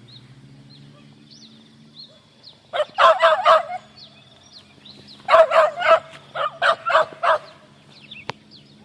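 Boar-hunting dogs barking in two rapid bursts of short barks, the first about three seconds in and the second from about five to seven seconds in.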